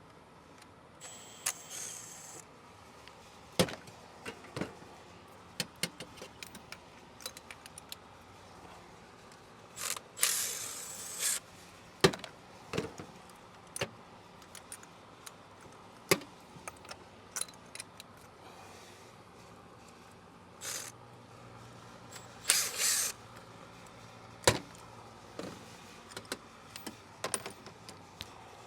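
Metal hand tools clinking, clicking and knocking irregularly while working on a car engine's spark plugs, with three brief hissing, rasping bursts near the start, in the middle and a few seconds before the end.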